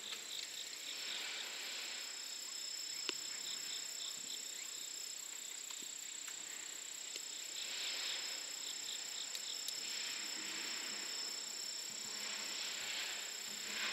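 Insects shrilling in the trackside greenery: two steady high-pitched drones, one higher than the other, with a fast pulsing chirp that comes and goes every few seconds.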